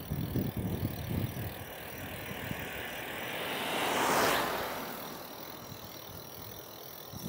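Small flatbed truck driving past the bicycle in the other lane, its tyre and engine noise swelling to a peak about four seconds in and then fading. Low wind buffeting on the microphone in the first second or so.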